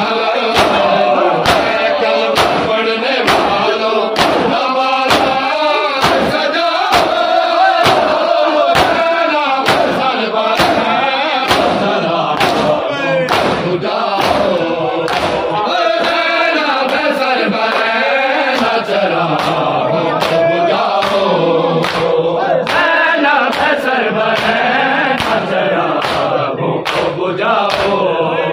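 A large group of men chanting a Shia noha in chorus, with the steady beat of open-handed chest-beating (matam) slaps a little faster than one a second.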